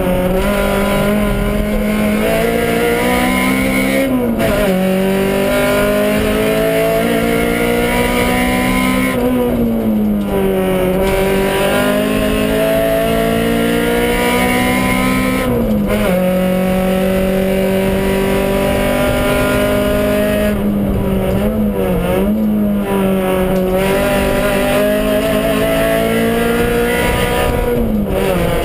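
Honda Civic Type R engine heard from inside the cabin while the car is driven hard. The pitch climbs steadily and then drops sharply, about every five or six seconds, as it goes through gear changes and braking.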